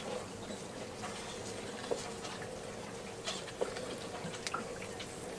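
Scattered light clicks and scrapes of a tap-wrench handle turning a screw extractor anti-clockwise, unscrewing a snapped cylinder-head bolt from a diesel engine block; the bolt turns out easily. A faint steady hum runs underneath.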